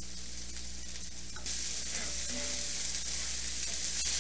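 Sliced onions sizzling as they caramelize uncovered in a hot cast-iron skillet. The hiss gets louder about a second and a half in.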